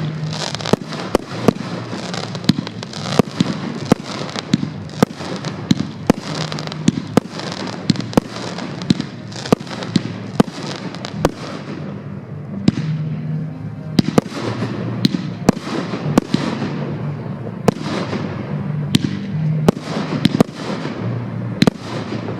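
Fireworks display heard at close range: a steady run of sharp bangs from bursting shells, about one or two a second, over continuous crackling and hissing. The bangs thin out briefly about twelve seconds in.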